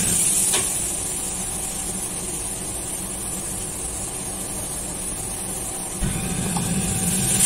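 Steady roar of a commercial kitchen's extraction hood and gas wok burner, with a single metal clank about half a second in. The low rumble swells and grows louder about six seconds in.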